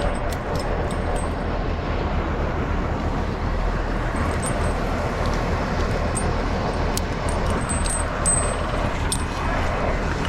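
An engine running steadily at an even low hum, with light sharp metallic clicks scattered over it.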